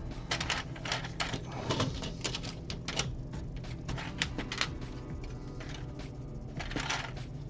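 Plastic Lego pieces clicking and tapping as they are handled and pressed into place: irregular sharp clicks, busiest in the first five seconds and again about seven seconds in.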